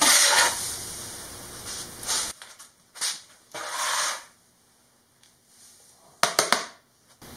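Hand brush sweeping dry wood shavings across a concrete floor into a plastic dustpan, in short swishes with pauses. Near the end the shavings are brushed off the dustpan into a plastic bin in a run of quick strokes and taps.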